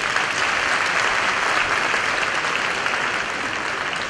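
Crowd applauding steadily, greeting a clear show-jumping round as the horse finishes; the clapping eases slightly near the end.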